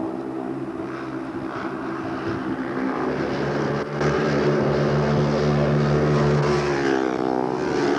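Speedway motorcycle engines running together at a steady, buzzing pitch, louder from about halfway and rising a little in pitch near the end.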